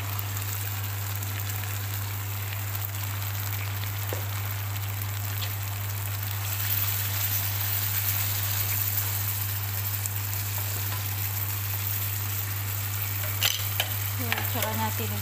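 Chicken pieces and mechado sauce sizzling in a hot pan, a steady frying hiss that grows a little louder partway through, with a few sharp clicks of a utensil against the pan near the end.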